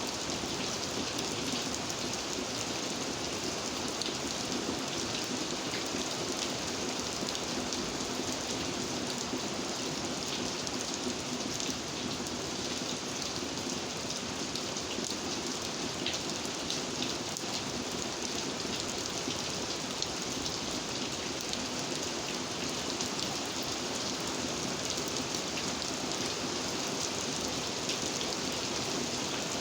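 Steady rain falling, a dense even hiss of drops with fine individual patters throughout.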